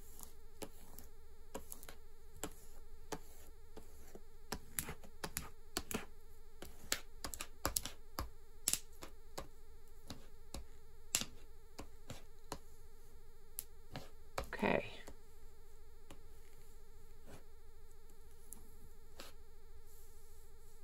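Small plastic squeegee scraping and clicking over a laminate sheet laid on vinyl sticker paper, pressing out air bubbles, in a string of short strokes that thin out after about twelve seconds. There is one longer, louder rustle about fifteen seconds in, and a faint steady buzzing hum throughout.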